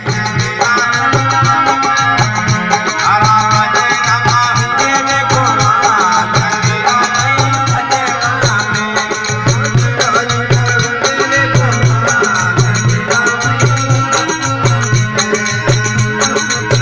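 Traditional folk music: a steady, repeating drum beat with rattle-like percussion under a wavering melodic line.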